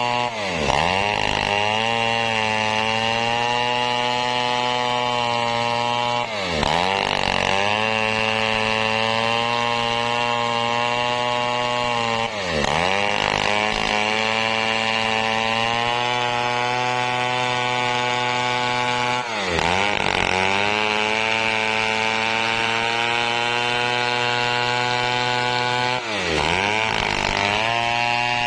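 Stihl 070 two-stroke chainsaw running at high revs while ripping a teak log lengthwise. Its pitch dips briefly and climbs back about every six seconds.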